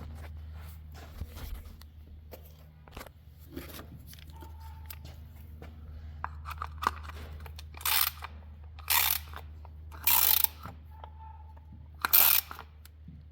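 Ratchet wrench worked in short strokes, four louder rasping pulls in the second half among small tool clicks, over a steady low hum in the shop.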